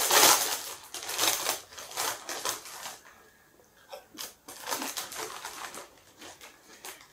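Foil crisp packet crinkling at the start, then Lay's potato chips crunching as they are bitten and chewed, in a run of short crisp crunches with a short pause in between.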